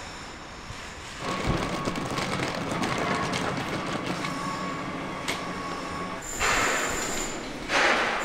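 Wheeled suitcase rolling over paving and tile floor: a steady rumble with small clicks as the wheels cross the joints, and two louder rushes of noise near the end.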